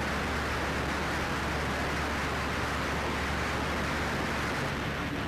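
Ikarus C42 microlight in flight, its engine and airflow heard through the headset intercom feed as a steady hiss over an even low hum.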